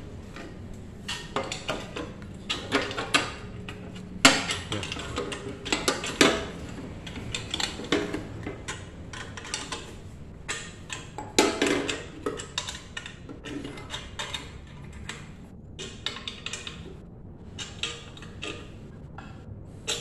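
Irregular clinks, knocks and rattles of metal parts being handled on a newly unboxed bandsaw, not running. A few sharper knocks stand out about four and six seconds in and again around eleven seconds.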